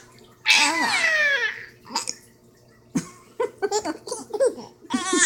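A baby laughing: a long, high squeal that falls in pitch, then a quick run of short giggles, and another high squeal near the end.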